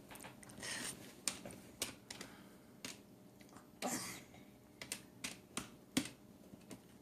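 Irregular clicks and taps of keys being pressed on a cash register, with a couple of soft rustles of handling.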